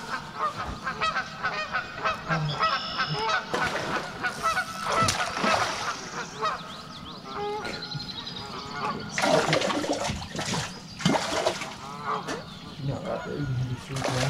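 Geese honking repeatedly, many calls overlapping.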